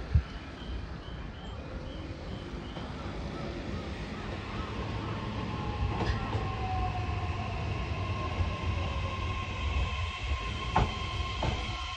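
JR E131 series electric train pulling into a platform, its rumble growing louder as it nears, with a steady whine and an electric motor whine falling in pitch as it slows. A couple of sharp clicks from the wheels near the middle and end.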